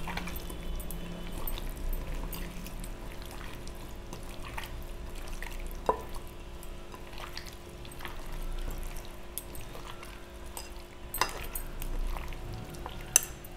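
A hand squishing raw chicken wings through a wet spice paste in a ceramic bowl, with soft wet squelching and a few light clicks.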